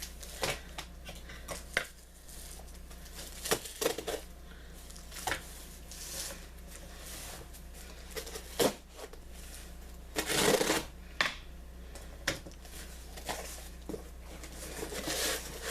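A cardboard box being opened and its packing material handled: scattered light clicks and knocks, with a longer rustle about ten and a half seconds in and another near the end.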